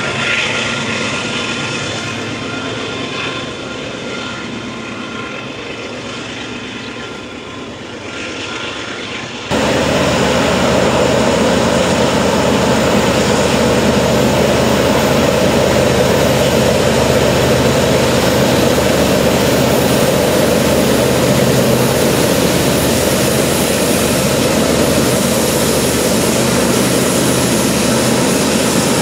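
Union Pacific diesel locomotives working hard as they haul loaded coal trains up a grade, a steady engine drone. About a third of the way in the sound cuts suddenly to a louder, closer locomotive drone that holds steady to the end.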